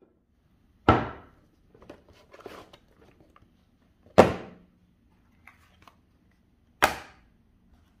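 Cardboard product boxes set down on a wooden tabletop: three sharp knocks a few seconds apart, each dying away quickly, with soft handling rustles between the first two.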